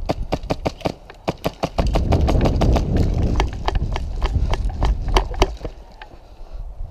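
Airsoft gunfire: a fast run of sharp clicks and pops, about five or six a second, with BBs cracking against wood. From about two seconds in until near six, a heavy rumble of running and handling noise on the camera's microphone covers it, then the clicks go on more faintly.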